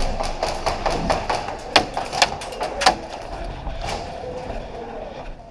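A run of sharp clicks and knocks at irregular intervals, the loudest about two to three seconds in.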